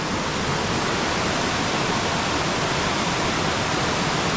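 Creek water rushing steadily over a small rocky cascade.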